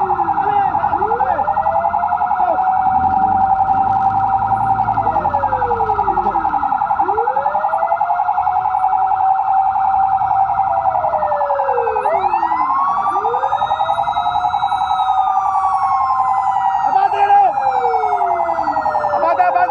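Fire engine sirens on a call: a steady, fast-warbling siren tone with several overlapping wailing sirens that rise and fall every few seconds. A few short sharp sounds come near the end.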